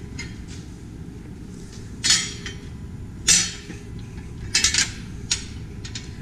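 Loose metal hardware such as bolts and washers clinking as it is handled: a few separate metallic knocks about two and three seconds in, the second the loudest, then a quick cluster of clinks near the end, over a steady low background noise.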